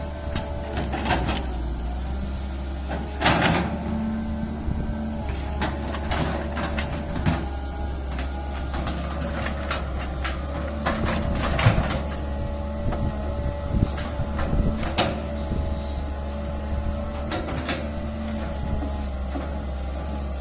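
Cat 320C excavator's diesel engine running steadily while the machine digs, with a steady hum over the drone and repeated sharp clanks and scrapes from the bucket working soil and stones. The loudest knocks come about three seconds in, near the middle and about three-quarters through.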